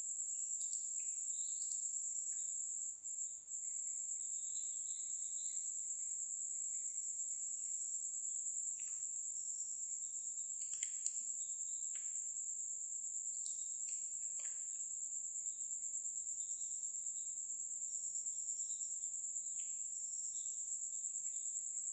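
A steady high-pitched whine hums under the recording, with a few faint clicks now and then, such as from a computer mouse.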